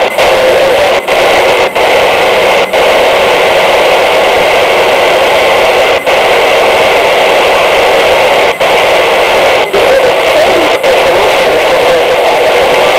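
Loud FM static hiss from a Realistic Pro-43 handheld scanner's speaker while it is tuned off-station, cut by several brief dropouts as the frequency is changed.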